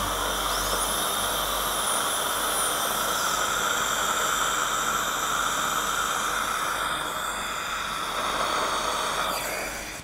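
High-speed dental handpiece running with a high whine and a steady hiss, its pitch rising and falling as the bur works the filling. It spins down just before the end.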